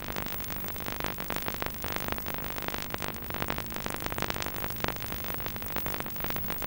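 Background synthesizer music.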